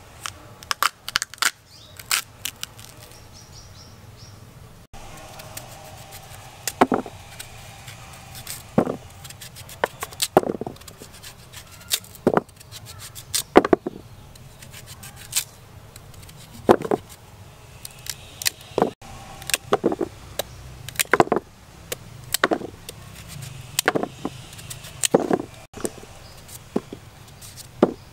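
A knife cutting raw purple sweet potato and pumpkin by hand, in a string of separate sharp knocks and clicks every second or two. Some come from the blade striking a wooden chopping board and some from chunks dropping into a plastic basin.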